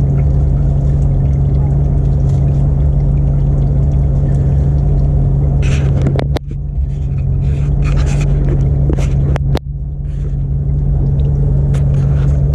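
A vehicle engine idling steadily with a low, even hum. A few sharp metal clicks come a little past halfway and again later.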